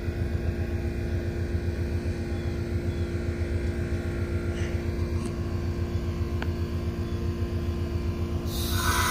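Amtrak Superliner bilevel passenger cars rolling slowly past: a steady low rumble of wheels on rail with a constant hum. Near the end a train horn starts to sound.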